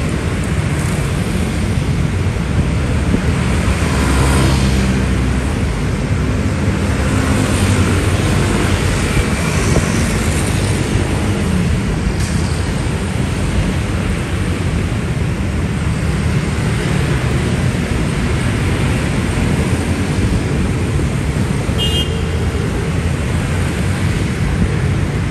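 Dense road traffic, many engines running and passing steadily. A louder vehicle passes about four seconds in, and a short high-pitched horn toot sounds near the end.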